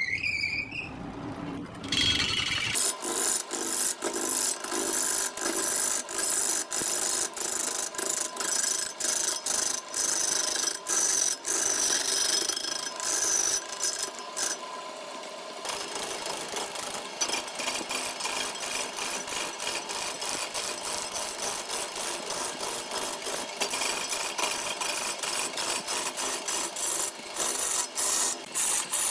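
Wood lathe turning a large log while a turning tool cuts into the spinning wood: continuous rough scraping and shaving noise with rapid, repeated clicks as the tool bites the uneven surface. A brief rising whine sounds at the very start.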